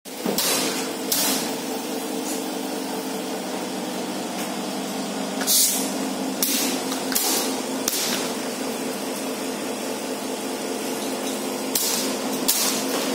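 Steady electrical hum of workshop equipment with a few fixed low tones, broken by about eight short swishes and clicks of LED strips being handled on the test table.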